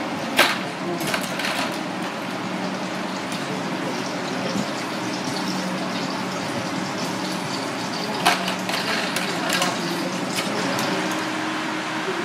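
Water at the boil in a stainless steel pot, bubbling steadily, over a low kitchen hum. Sharp metal clinks of tongs and a strainer against the pot rim about half a second in and again about eight seconds in.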